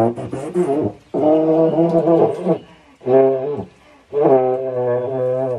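King baritone horn, made by H.N. White, blown by a player who is not musically inclined. A rough, sputtering attack gives way to three held low notes with short breaks between, the middle one brief.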